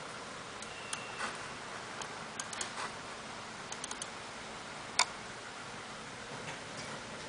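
Computer mouse clicks: a few light scattered clicks, with one sharper, louder click about five seconds in, over a steady hiss.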